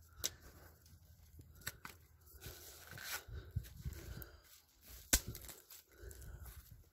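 Footsteps rustling and crunching through grass and dry twigs, with a few sharp snaps, the loudest about five seconds in.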